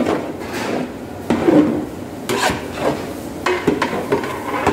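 Long metal spatula scraping and knocking against a large metal cooking pot as chopped onions frying in oil are stirred, in irregular strokes roughly once a second. The onions are being slowly browned for a masala base.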